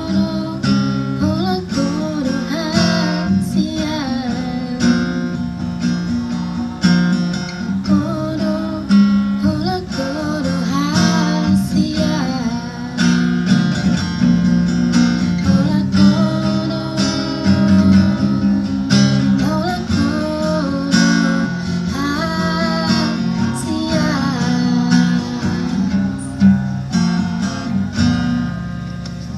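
A woman singing a Batak song to strummed acoustic guitar accompaniment, her voice worn thin by a cough and cold. The music ends right at the close.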